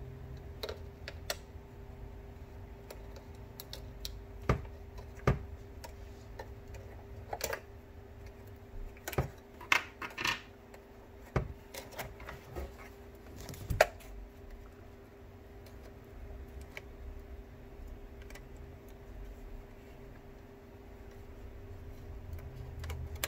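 Scattered plastic clicks and light knocks of hands handling a 1997 Ford F-150 instrument cluster, pressing on its circuit board and seating the ribbon cable, mostly in the first half, over a steady low hum.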